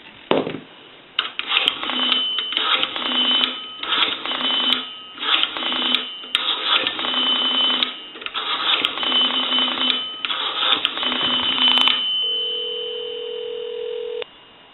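A 223G payphone's rotary dial being dialled through a number: a run of whirring, clicking dial returns, with the bell tinkling along, over about eleven seconds. Then a steady ringback tone sounds for about two seconds: the call is ringing through.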